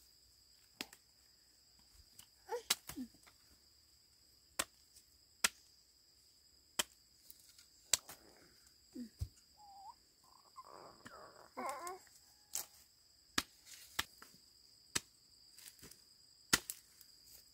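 Irregular sharp clicks and knocks, roughly one a second, over a steady high trill of crickets.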